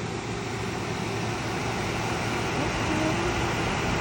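Dehumidifier running: a steady fan-and-compressor whir with a low hum.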